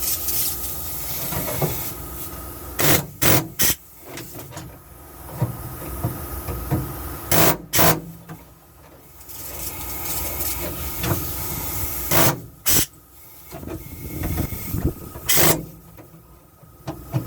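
Pneumatic air chisel firing in short bursts, mostly in pairs every few seconds, cutting the remains of an old floor pan off a truck's cab support.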